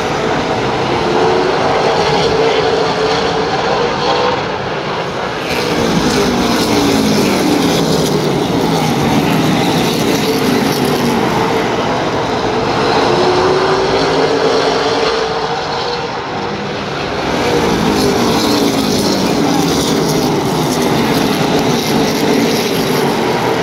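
A pack of super late model stock cars racing, many V8 engines at full throttle together, their pitch rising and falling as the cars sweep past. The sound swells and eases twice as the field circles the track.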